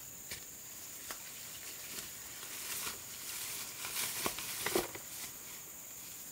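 Footsteps on a dirt path and leaves and grass stems rustling as a person pushes through thick vegetation, with scattered small snaps and crackles, busiest about four to five seconds in. A steady high hiss runs underneath.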